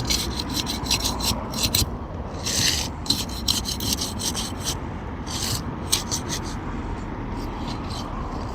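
A thin flat metal tool scraping under asphalt shingles to break their sealant strips, in a quick run of short rasping strokes that thin out over the last couple of seconds.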